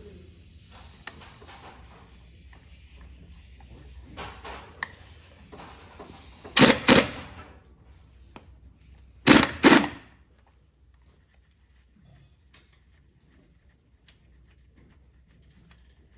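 Tools being worked on a wheel's lug nuts: two pairs of loud, sharp bursts, about six and a half and nine and a half seconds in, with quieter clicks and tool handling before them.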